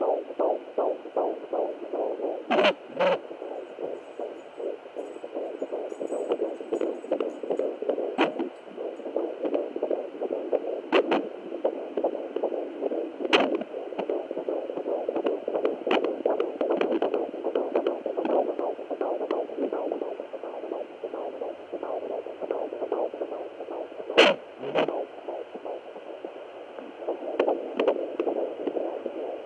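Fetal heartbeat at 15 weeks picked up by a Doppler monitor: rapid, quick-paced whooshing pulses over steady hiss, which the uploader hears as irregular. Several sharp thumps break in, the loudest about 24 seconds in, which the uploader takes for the baby's constant movement.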